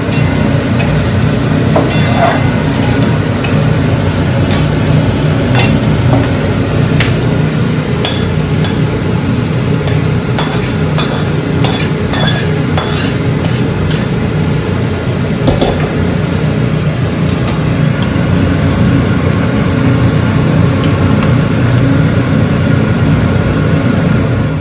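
Food sizzling in a kadai as it is stirred with a spoon, the spoon knocking and scraping against the pan several times, most of them about ten to fourteen seconds in.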